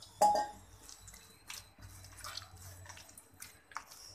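Hands kneading a very soft, wet maida and semolina dough in a steel plate: irregular wet squelching and slapping. There is a sharper, louder wet slap just after the start.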